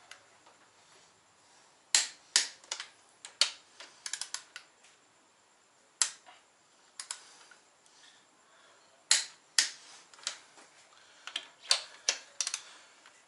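Torque wrench clicking as it tightens the ARP 2000 head studs on an RB25DET cylinder head to the final 90 ft-lb stage. About a dozen sharp clicks come at uneven spacing, some in quick pairs, one or more for each stud as it reaches torque.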